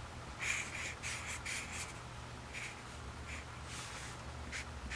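A Sharpie felt-tip marker drawing on paper: a quick run of short strokes in the first two seconds, then a few single strokes spaced out after that.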